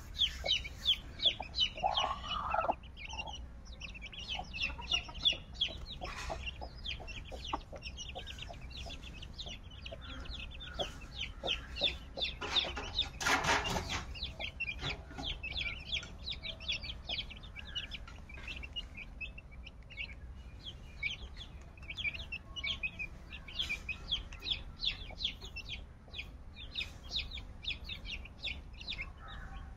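Chicks peeping in rapid, high-pitched chirps throughout, with a hen clucking. A louder, noisy burst of about a second and a half comes near the middle.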